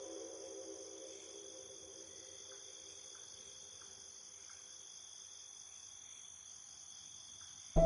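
Crickets trilling steadily in a quiet night ambience, while a low music drone fades out over the first few seconds. Louder music cuts back in abruptly at the very end.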